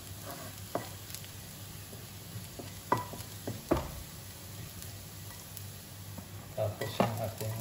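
Minced garlic sizzling in hot oil in a nonstick wok, stirred with a wooden spatula that scrapes the pan and knocks against it a few times.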